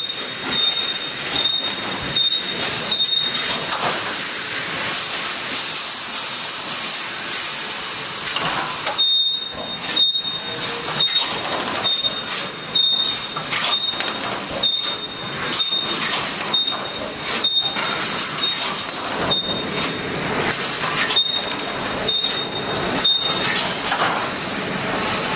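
Automatic reinforcing-mesh resistance welding machine running: a steady clatter of repeated welding and feed strokes, about two a second, with a high tone that pulses on and off for stretches.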